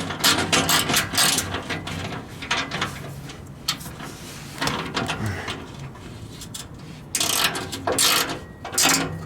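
Hand ratchet with a 5/16 bit clicking in short runs as a shield screw is tightened by hand, with a louder burst of noise about seven seconds in.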